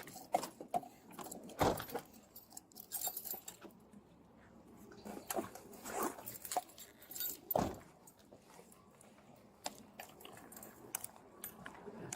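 Handling noise on a body-worn camera: scattered clicks, knocks and rustles, with louder knocks about two seconds in and again past seven seconds.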